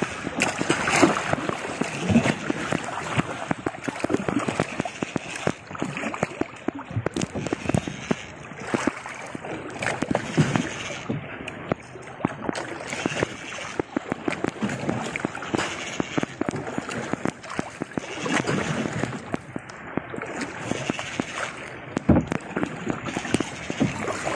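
Choppy sea waves splashing and slapping against the hull of a small outrigger canoe, with many short knocks scattered throughout.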